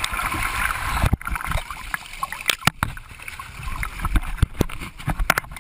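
Water sloshing and splashing in a flooding aircraft cabin, with scattered sharp knocks and bumps.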